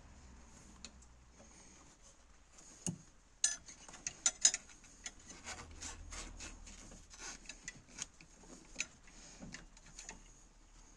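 Hand work on the intake hose connection at a VW T4 1.9 TD's EGR valve: a flat-blade screwdriver and metal hose clamp clicking and scraping at irregular intervals, with a cluster of sharper clicks about three to four and a half seconds in.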